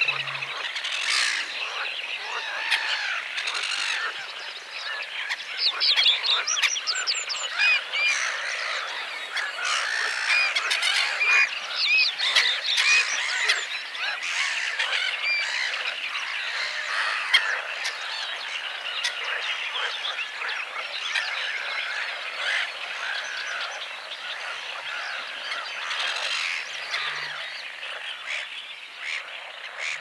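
Little grebes singing their spring breeding song, rapid runs of high, bending notes within a dense, unbroken wetland chorus. The chorus is busiest in the first half and eases a little later on.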